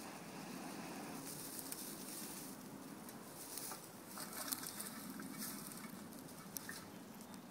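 Blowing on a smouldering tinder bundle, then a small twig fire burning in a pan, crackling with a few sharp snaps.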